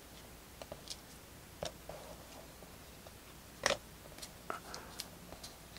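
Trading cards being handled on a table: a few faint clicks and taps, the loudest a little before four seconds in.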